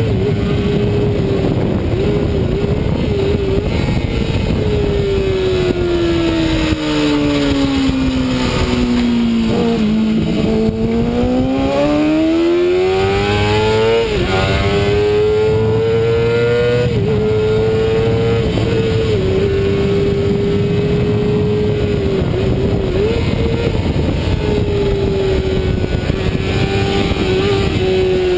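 Racing sport bike engine heard from an onboard camera on the fairing, with wind rush. The engine pitch falls steadily from about four to ten seconds in as the bike slows into a corner. It then climbs again with short breaks at gear changes and holds high and steady for the rest.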